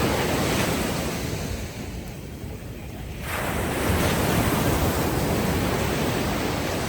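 Ocean waves washing ashore: one wave recedes about two seconds in, a brief lull follows, and the next wave surges in a little after three seconds.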